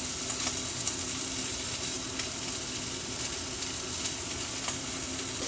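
Steak searing in a hot pan: a steady fat sizzle with scattered small crackles and pops.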